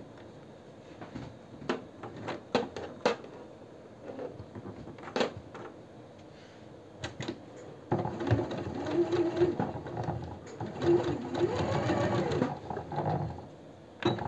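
Domestic sewing machine stitching for about five seconds from about eight seconds in, securing the end of the seam on a bias-bound neckline. Before it come scattered light clicks.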